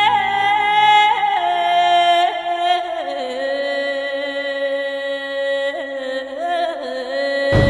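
A wordless wailing voice, the kind used as a ghost's moan in horror sound effects, holds one long eerie note with small wavers. The note steps down in pitch a few times in the first three seconds and then holds steady. Near the end a loud harsh noise cuts in.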